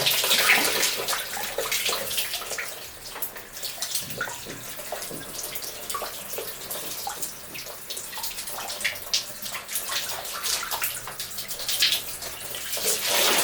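Bathwater splashing and trickling in a small tub as a baby monkey is bathed, with uneven splashes, louder near the start and again near the end.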